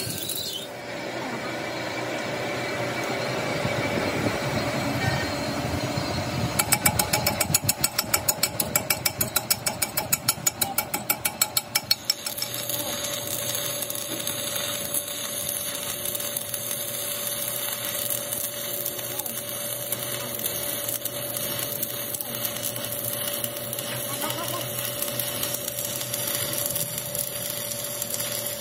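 Machine-shop work on a truck trunnion shaft: a rapid run of even knocks, about five a second, for several seconds, then a steady machine hum with one held tone.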